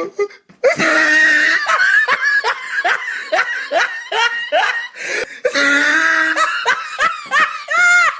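A person laughing hard in a long run of short, falling 'ha' strokes, two or three a second, with a short break for breath about five seconds in.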